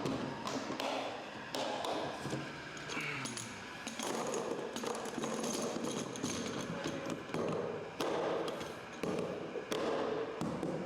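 Knocks, taps and scraping from plastic overland storage boxes being handled, a string of irregular thuds with rustling between them.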